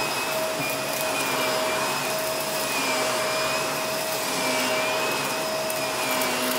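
Bagless upright vacuum cleaner running steadily while pushed back and forth over carpet. Its motor whine wavers slightly in pitch with each stroke.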